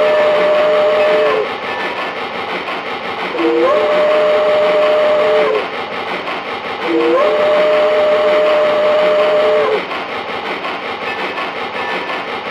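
Steam locomotive whistle, a two-note chime, sounding three long blasts. Each blast slides up from a lower note as it starts. The first is already sounding and stops about a second in, and the last is the longest. A steady rushing noise runs underneath.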